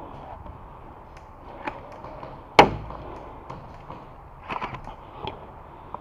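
A few sharp knocks and clicks over a low background: one much louder knock about two and a half seconds in, then a quick cluster of three or four clicks a little before the end and one more shortly after.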